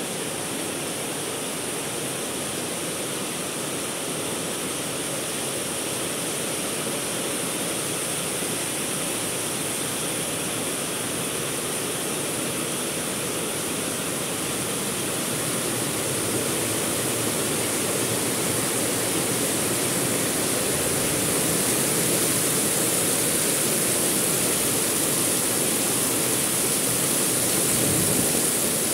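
Heavy rain falling in a steady, even downpour that grows a little louder about halfway through.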